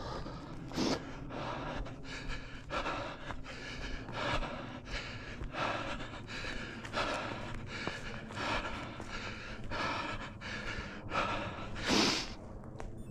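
A runner breathing hard, a loud gasping breath about every second and a half, with a louder gasp near the end: out of breath from running an orienteering course.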